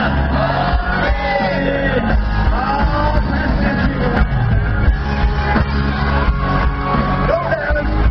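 Loud music with a steady bass and a voice singing long, gliding notes, with people shouting along.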